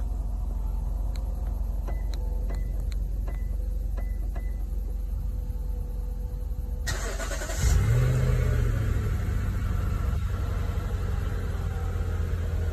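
Lexus GX460's 4.6-litre V8 being remote-started from the key fob. A few light clicks come in the first few seconds. About seven seconds in the starter cranks, the engine catches a second later with a brief flare, and it settles into a steady idle.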